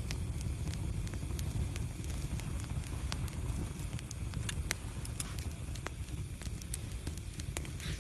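Fireplace fire burning with a steady low rumble and irregular sharp crackles and pops.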